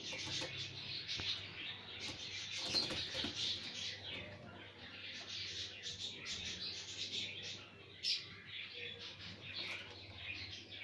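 Birds chirping, a dense run of high twittering calls overlapping without a break, with one louder call about eight seconds in.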